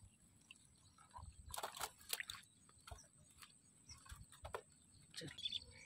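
Faint sloshing and dripping of shallow water stirred by someone wading and handling a fish, with a few brief soft splashes scattered through.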